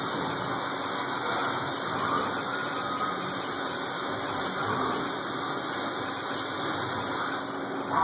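A CNC milling machine running: a steady, even rushing mechanical noise.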